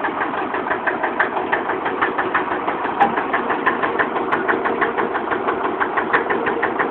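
IFA RS 04/30 tractor's two-cylinder diesel idling steadily with an even knock, about six or seven beats a second. It is running well on its first run after long standing.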